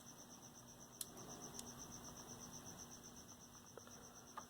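Near silence: faint room tone with a steady, evenly pulsing high trill and a low hum, broken by two small clicks about a second and a second and a half in.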